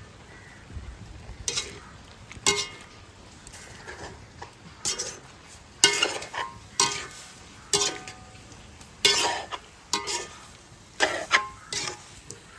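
Metal spoon stirring squid in a metal cooking pot: irregular scrapes and knocks against the pot, each with a brief metallic ring. They start about one and a half seconds in.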